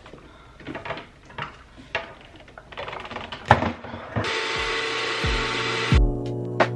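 Bissell portable carpet spot cleaner being handled with a few light clicks and knocks, then its motor switching on suddenly about four seconds in and running with a steady whine for its suction. Background music comes in near the end.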